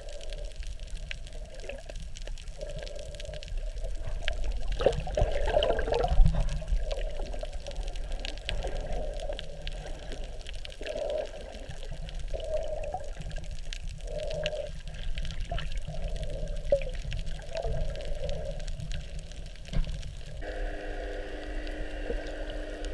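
Muffled underwater water noise picked up by a GoPro in its waterproof housing: a low rumble with irregular sloshing swells and small clicks. A steady droning hum joins near the end.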